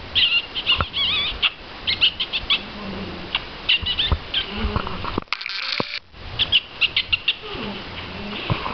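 Chihuahua puppies at play: repeated short, high-pitched squeaks and whimpers, some wavering in pitch, mixed with small clicks and scuffling. A brief rustle comes about five seconds in.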